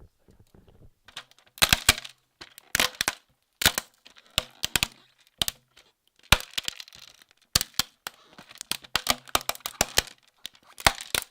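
Sharp cracking and snapping sounds made for foley, coming in about nine irregular clusters of quick snaps, as of something brittle being broken.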